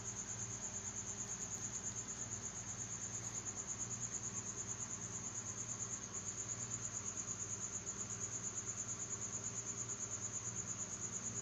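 An insect trilling without pause: a high, steady chirp that pulses rapidly and evenly, over a faint low electrical hum.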